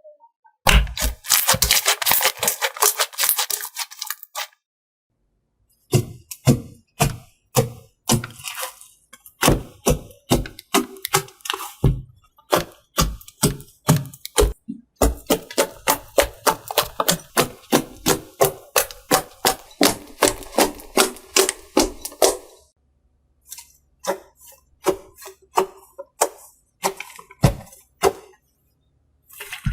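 Slime being squeezed, poked and pressed by hand: a rapid run of sticky clicks and popping air pockets in quick trains, with two brief breaks.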